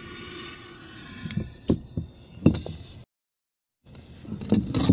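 A glass jar and a vase filled with coloured powder being handled and set down on a wooden board: a series of sharp knocks and clunks, broken by a dead silence a little after three seconds in.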